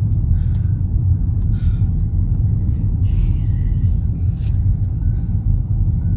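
Steady low rumble of a car driving, with a few faint clicks here and there.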